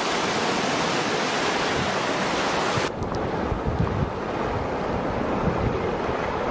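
Hailstorm: hail and rain coming down in a dense, steady hiss. About three seconds in it changes abruptly to a duller hiss, with wind buffeting the microphone.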